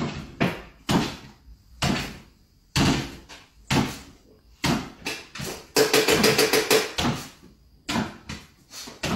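A string of sharp thumps on a wooden floor, roughly one a second, as a small dog hops on its hind legs and lands. About six seconds in there is a quick run of rapid taps.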